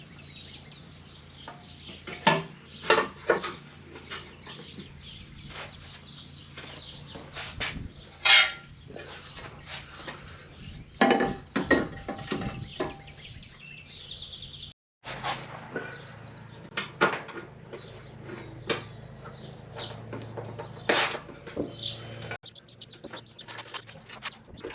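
Irregular clinks and knocks, as of tools or mower parts being handled, over a faint steady background.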